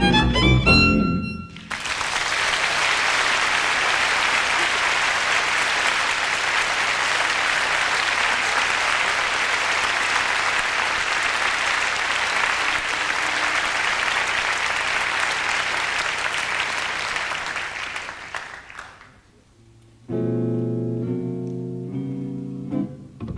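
A jazz violin phrase ends, then an audience applauds steadily for about sixteen seconds before the clapping dies away; after a brief pause a guitar starts playing the next tune.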